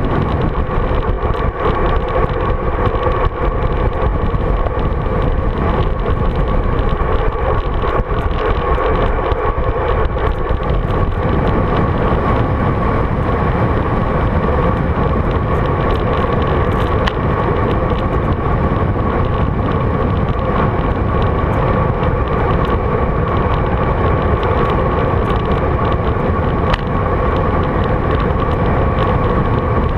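Steady, loud rush of wind on a GoPro Hero 3's microphone from a road bike moving at speed.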